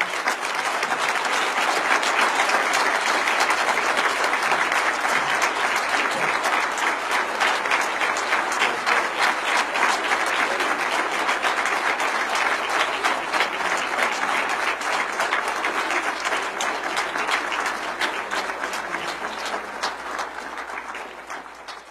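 Large audience of conference delegates applauding, a dense, steady clatter of many hands clapping that tapers off near the end.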